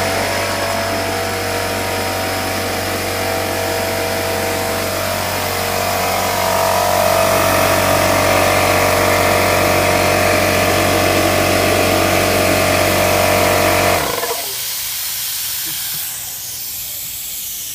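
Electric air compressor running steadily after being switched on. It grows louder about six seconds in and shuts off abruptly about fourteen seconds in. After that, air hisses out of a hose fitting that is not tight enough.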